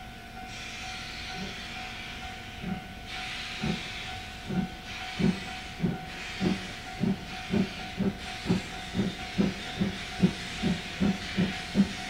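C11 steam tank locomotive pulling away, its exhaust chuffs quickening from about one a second to about two and a half a second and growing louder. Steam hisses steadily from around the cylinders.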